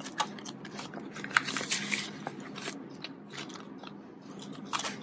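Plastic banknotes and clear plastic binder envelopes rustling and crinkling as they are handled and the pocket pages are turned, with many small crackles and taps.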